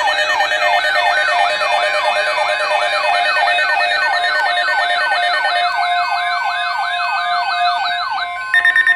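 Electronic yelp-style siren, a loud tone sweeping rapidly up and down about three times a second. Near the end it cuts off and a rapid, higher-pitched pulsed beeping takes over.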